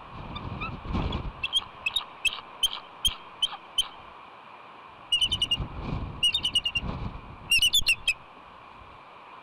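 Bald eagle calling from the nest: a run of high, thin piping notes, then three quick bursts of rapid chattering. This is the eagle's alarm call at ravens trying to take her egg. Wind rumbles on the microphone underneath.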